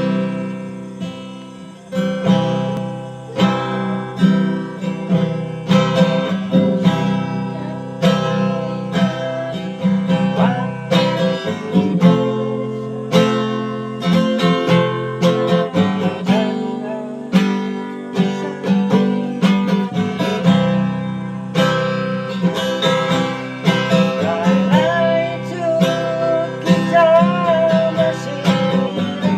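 Acoustic guitar played with strummed and plucked chords in a steady rhythm, a melodious tune.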